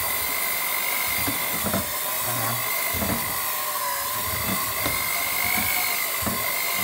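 Electric hand mixer running with a steady high whine, its beaters churning cold butter and icing sugar as egg yolk is added, with occasional short knocks.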